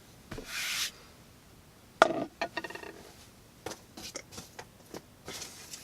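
Handling sounds between cutting tests with a metal folding knife: a short rustle, then a sharp click with a brief metallic ring about two seconds in, a few lighter clicks, and another rustle near the end.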